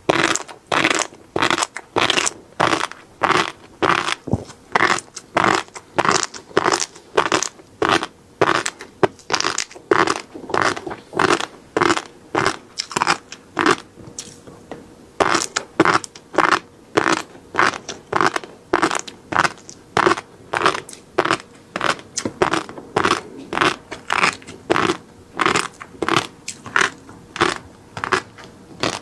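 Close-miked chewing of ready-to-eat flying fish roe (tobiko), one short chew after another at about two a second, with a brief pause about halfway through.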